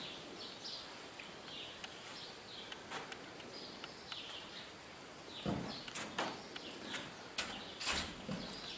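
Small birds chirping in the background, with the soft thuds, taps and shuffles of a dancer's steps on the floor, the heaviest about five and a half and eight seconds in.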